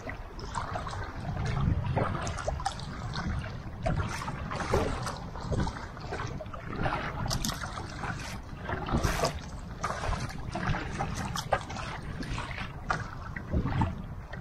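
Sea water splashing and lapping against the plastic hull of a Feelfree Nomad sit-on-top kayak being paddled, with irregular sharp splashes throughout.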